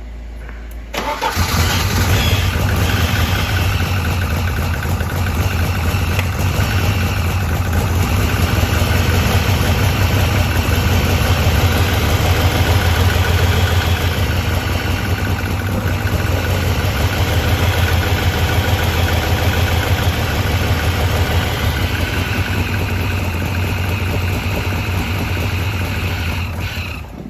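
Turbocharged Ford Pinto four-cylinder engine in a Ford Cortina starting about a second in and then running steadily through its newly built stainless steel exhaust. It cuts off suddenly near the end.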